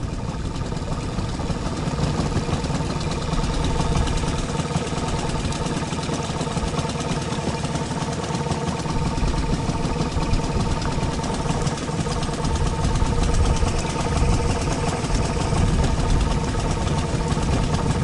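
Outboard motor on an inflatable boat running steadily at low speed.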